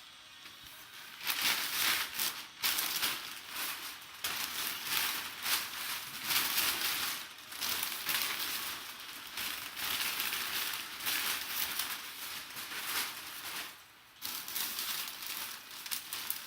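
Packing material crinkling and rustling as it is handled by hand, in irregular bursts starting about a second in, with a short lull near the end.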